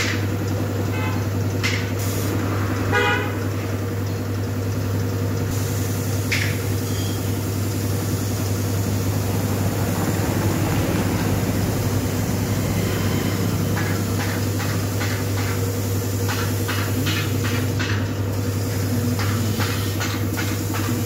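Compressed-air paint spray gun hissing as it sprays the car's wheel and fender, starting about a quarter of the way in, over a steady low machine hum from the air compressor.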